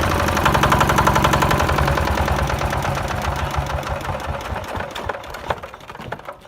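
Small motor of a homemade model tractor running with a fast rhythmic clatter, fading away over the last few seconds.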